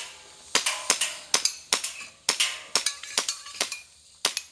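Airsoft pistol fired rapidly: about a dozen sharp cracks, mostly in quick pairs, with a short pause near the end.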